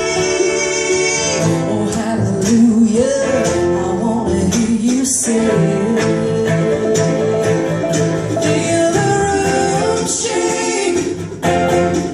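Live bluegrass band: a woman singing lead over acoustic guitars, banjo, fiddle and upright bass.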